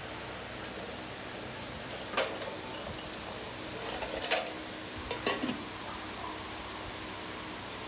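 Steel pots and utensils clinking and knocking as they are handled and set down: one clink about two seconds in, a cluster around four seconds, the loudest of them, and a couple more a second later, over a steady background hiss.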